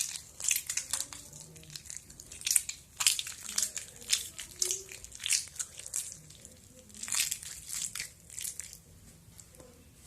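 Hands stretching and squeezing over-activated laundry-detergent slime that has been softened in water, giving irregular sticky crackles and pops in clusters.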